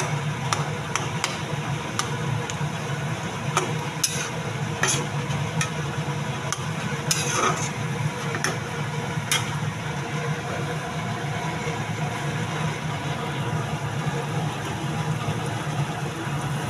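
Steel spatula stirring a watery curry in an iron kadai, scraping and clicking against the pan for about the first nine seconds, over a steady low hum.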